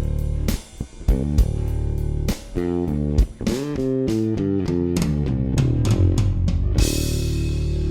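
Yamaha Attitude electric bass played on its middle pickup alone: a busy riff of plucked notes, some sliding in pitch, over a drum backing track with a cymbal crash near the end.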